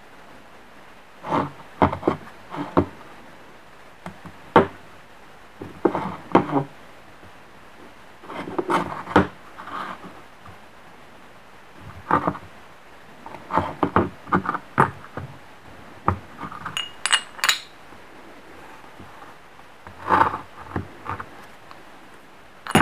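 Handling noise of a machined metal part on a wooden workbench: scattered knocks, taps and rubs in short clusters, with a couple of ringing metallic clinks a little past halfway.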